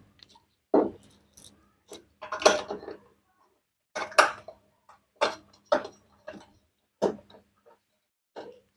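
Washing machine parts being handled and fitted into place during reassembly: about a dozen separate knocks and clicks, spaced unevenly.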